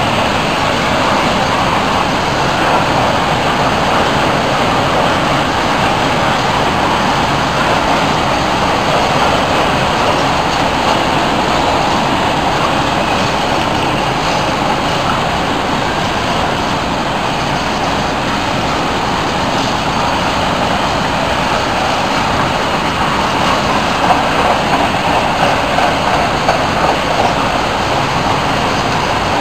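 Empty open freight wagons rolling past: a steady rumble and rattle of wheels on the rails, with a short run of louder knocks about 24 seconds in.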